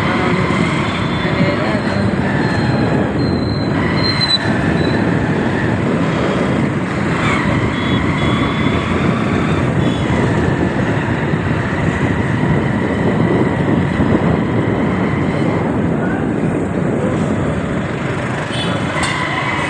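Road traffic and riding noise from a motorcycle in city traffic: a steady rush of engines and wind, with a thin high whine that fades in and out.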